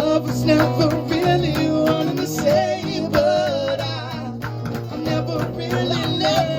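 Live band playing: a wavering, bending lead melody carried over guitar, bass and a steady drum beat.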